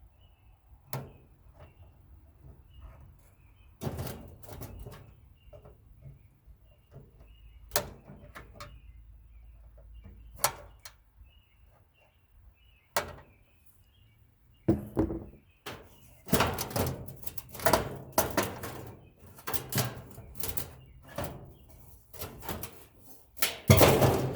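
Metal clanks, knocks and rattles of a small furnace's sheet-metal parts being unscrewed and handled during dismantling, a few scattered hits at first, then a busy stretch of clattering through the second half. Faint bird chirps behind.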